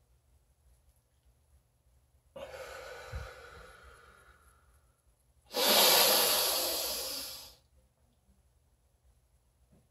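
A man's deep breath: a long breath drawn in about two seconds in, fading over two and a half seconds, then a louder, forceful breath out of about two seconds.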